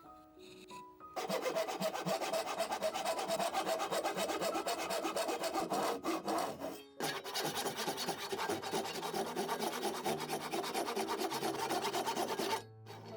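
A hand tool working wood in quick back-and-forth strokes, rasping across the grain, in two bouts with a short break just before the middle, stopping shortly before the end.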